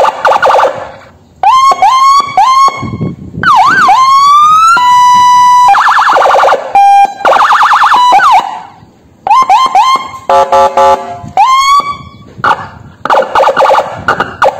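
Police car electronic siren worked from a CJB100W control box, switched through its tones one after another: a fast warbling yelp, short rising whoops, an up-and-down wail and a steady tone. Each tone lasts a second or two, with brief gaps as the switches change.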